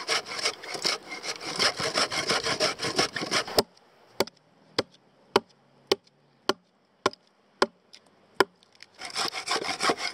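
Folding pruning saw cutting across a log in quick back-and-forth strokes for about three and a half seconds, notching it to seat a step. Then a run of about eight sharp axe chops, a little under two a second, levelling out the notch, before the sawing starts again near the end.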